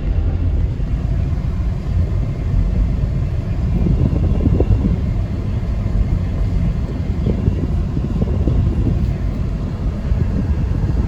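1999 Lexus RX 300's 3.0-litre V6 running with a low, uneven rumble: a misfire in cylinder 6, which the owner blames on a failing ignition coil.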